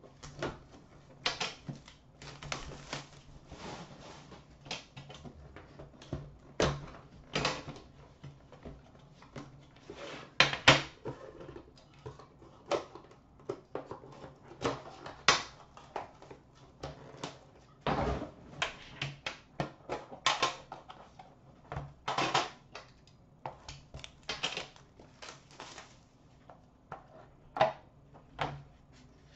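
Hands unwrapping and opening an Upper Deck The Cup hockey card tin: irregular clicks, clacks and rustles of the packaging and the metal tin and its lid.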